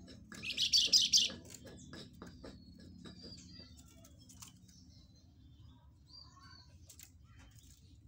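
Caged songbird giving one loud, rapid chattering call about half a second in, then a few faint chirps and light clicks.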